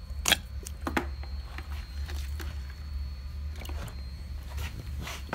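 A few sharp clicks and knocks as the vacuum coolant refill tool and its hose are handled over a plastic bucket of coolant, over a steady low hum.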